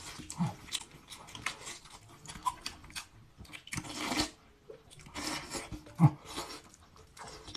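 Close eating sounds: a ceramic spoon scraping and knocking in a stainless steel bowl of braised beef and rice, with mouthfuls being taken and chewed in short irregular bursts.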